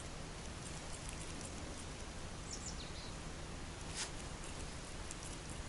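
Quiet outdoor ambience: a steady low hiss, with a few faint high, falling chirps from a bird about two and a half seconds in and a single sharp click about four seconds in.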